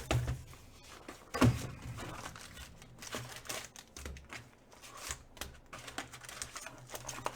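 Football card packs being handled and torn open: wrappers crinkling and tearing, with scattered small clicks and taps.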